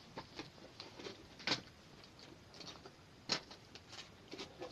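Faint, scattered clicks and taps of small plastic fidget toys being handled, with two sharper clicks about a second and a half and a little over three seconds in.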